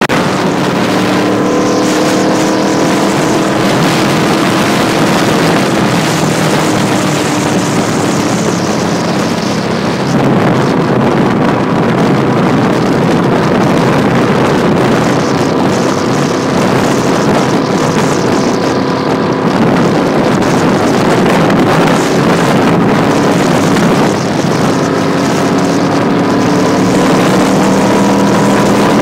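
Motorcycle engine running steadily at highway cruising speed, with heavy wind noise on the microphone. From about ten seconds in, the wind covers most of the engine's note until it comes through clearly again near the end.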